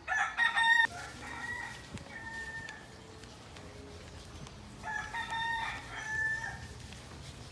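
A loud pitched bird call right at the start and a second call about five seconds in, each a stack of tones lasting roughly a second or more.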